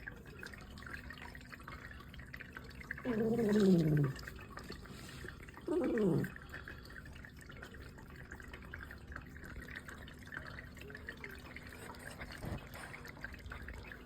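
A cat making strange low calls while eating: one call of about a second that falls in pitch about three seconds in, then a shorter falling call about six seconds in. Faint wet clicking of chewing goes on between them.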